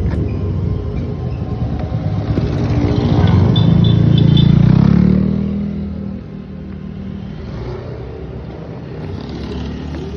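A motor vehicle passes by: its engine grows louder, peaks about halfway through, then fades away.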